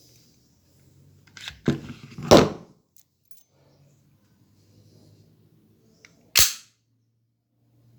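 FN FNS-9 gas blowback airsoft pistol firing: sharp cracks of the gas shot and slide cycling, a quick group of them around two seconds in and a single loud one about six seconds in.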